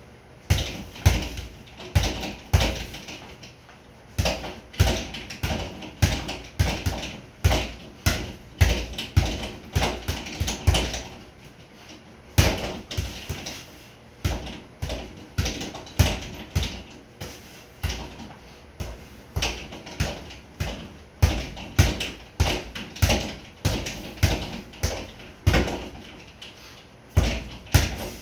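Boxing gloves striking a sideways-mounted double-end bag in quick flurries of punches, with short pauses between the flurries.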